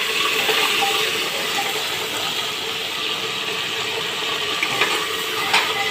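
Garlic-ginger paste sizzling and crackling in hot oil in a clay handi as it is stirred, with a few clicks near the end.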